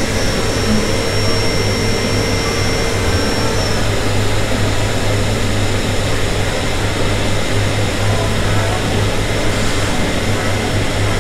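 Cotton candy vending machine running, its spinner head whirring steadily with a low hum while sugar floss winds onto the stick. A faint whine within it stops about four seconds in.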